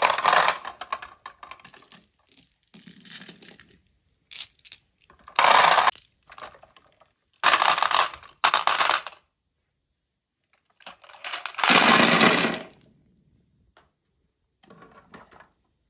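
Glass marbles clattering against each other and the hard plastic bed of a toy dump truck as they are loaded and tipped. The clatter comes in repeated bursts a second or two apart, with short quiet gaps between.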